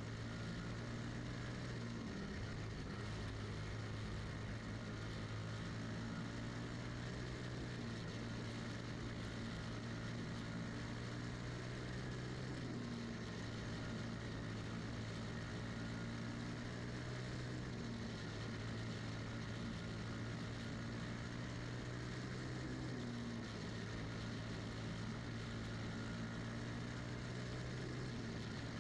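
Single-cylinder Briggs & Stratton Animal four-stroke engine of a champ kart running at racing speed. Its pitch dips and climbs back about every five seconds.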